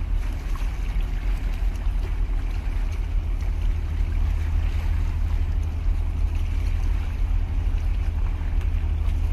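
Wind buffeting the microphone as a low, uneven rumble, over the steady wash of the sea against the concrete breakwater.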